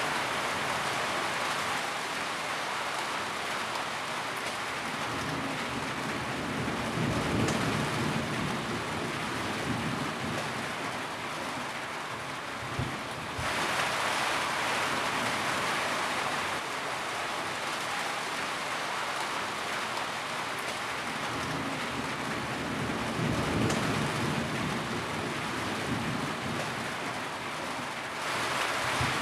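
Steady rain falling in a dense, even hiss, with low rumbles swelling up twice, about a quarter of the way in and again about three-quarters through.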